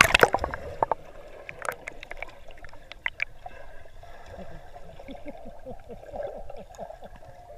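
Waterproof camera plunging into a swimming pool with a splash, then muffled underwater gurgling and bubbling with scattered clicks from swimmers moving in the water.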